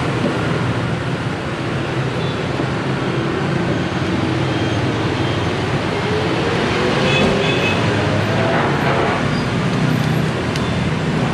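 Steady road traffic noise from a busy street, with an engine rising in pitch as it speeds up through the middle, and a single sharp click near the end.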